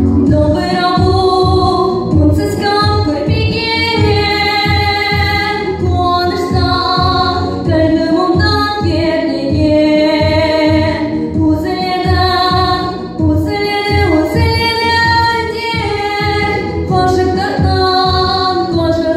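A young girl sings a Kazakh ballad about the dombra, held melodic phrases with short breaks between them, over recorded accompaniment with a steady pulse.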